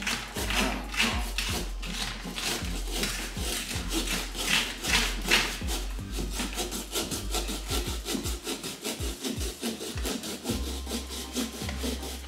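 Drywall saw sawing through the shell of a pumpkin around its stem to cut off the lid, in quick, rhythmic back-and-forth strokes.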